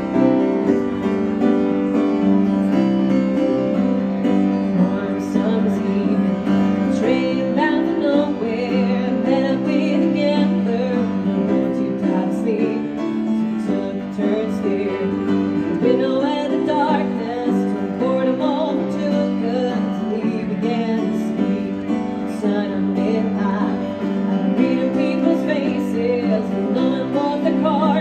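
A woman singing while accompanying herself on a grand piano, a live vocal-and-piano performance.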